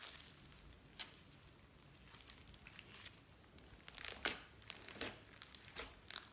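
Red slime squished and pressed by hand, giving sticky crackling and popping. A single sharp click about a second in, a quiet stretch, then a cluster of crackles from about four seconds as the hand presses down.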